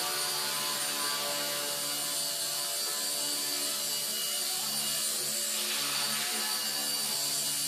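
V977 micro RC helicopter hovering, its electric motors and rotor giving a steady buzzing whine made of many tones.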